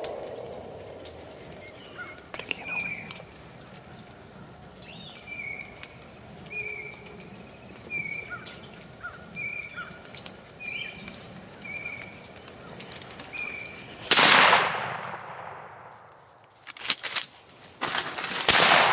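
A hunting rifle fires with a loud crack and a long rolling echo about fourteen seconds in, and a second loud crack with a similar echo comes near the end. Before the shot, a bird repeats a short chirp about once a second.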